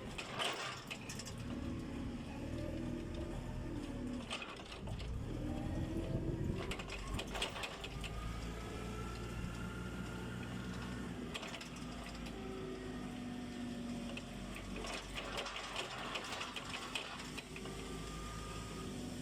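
Machinery running, with a steady hum, several held and slowly shifting tones, and scattered clicking and rattling.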